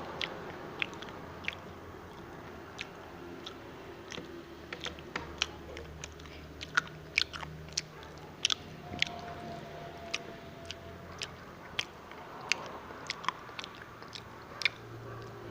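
Biting into and chewing crispy fried sweet potato: an irregular run of many sharp crunches.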